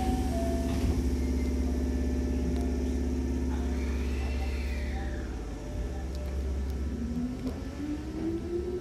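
Hankyu Kyoto Line electric train starting off from a station. Its equipment hums steadily, then about seven seconds in the traction motors' whine begins rising in pitch as the train accelerates.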